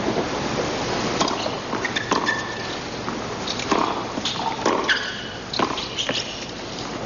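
Tennis stadium crowd murmuring between points, with scattered calls from spectators and a few short, sharp knocks.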